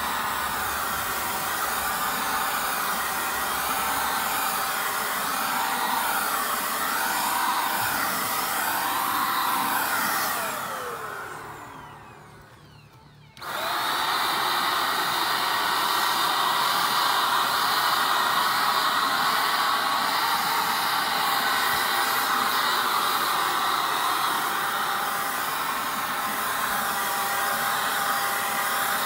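Handheld electric paint spray gun's blower motor running steadily with a constant whine and the hiss of paint spraying. About ten seconds in it is switched off and winds down with a falling pitch. About three seconds later it starts again abruptly and runs on steadily.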